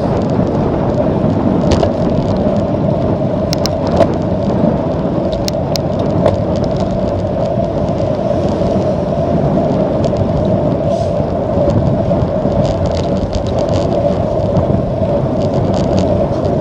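Steady rush of wind over the microphone and tyre noise from a bicycle riding at about 20 mph, with a few sharp knocks and clicks, mostly in the first seven seconds.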